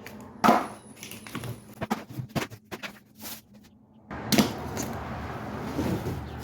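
Unpacking a boxed gas grill: scattered knocks, clicks and rustles of cardboard and packed parts being handled, with a louder knock a little past four seconds in.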